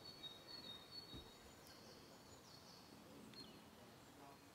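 Near silence: faint outdoor background with a thin steady high whistle and a few faint falling high chirps.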